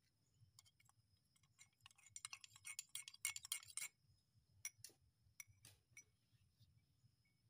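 Metal spoon clinking against a small drinking glass while a liquid is stirred: a quick run of clinks from about two to four seconds in, then a few scattered clinks.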